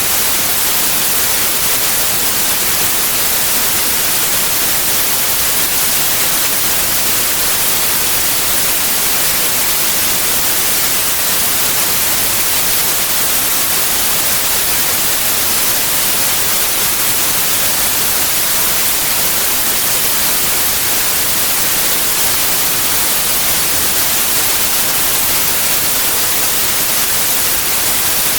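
Steady white noise: an even, unbroken hiss, brightest in the treble, that holds the same level throughout.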